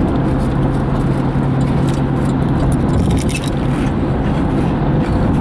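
Steady road and engine noise inside a moving car, with a low drone. Around the middle comes brief crunching as a crisp shrimp wafer snack is bitten and chewed.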